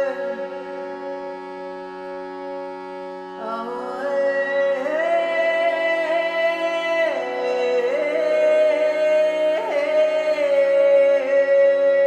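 Meditative chant music: a steady sustained drone, joined a few seconds in by a wordless voice singing long held notes that glide from one pitch to the next.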